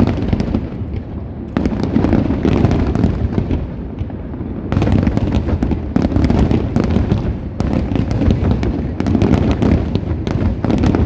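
Fireworks display in a dense barrage: overlapping booming shell bursts with a constant crackle, continuous and loud, with brief lulls about a second and a half in and about four seconds in.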